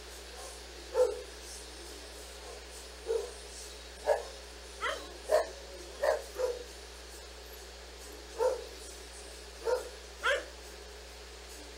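A senior dog barking in short single barks, about ten spaced irregularly a second or so apart, a few of them rising into higher yelps. These are demand barks from a dog waiting to be given a chew.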